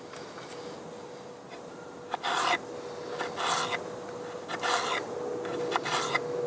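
Knife slicing through a peeled potato onto a wooden cutting board: four short rasping cuts, about one a second, starting about two seconds in. A faint steady tone runs underneath.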